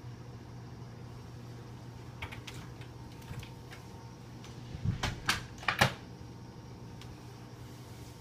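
Steady low hum from the aquarium's equipment, with a few faint clicks and then a quick cluster of about four louder sharp sounds around the middle.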